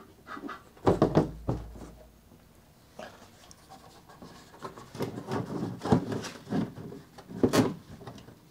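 Hollow 3D-printed lightweight PLA canopy being handled and fitted onto a large model jet fuselage: bumps and rubbing of thin plastic shells, loudest about a second in and again near the end.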